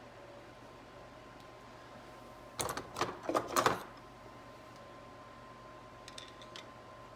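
A short flurry of sharp clicks and rattles about three seconds in, with a few faint ticks near the end, from tools and metal transmission parts being handled during the pump installation.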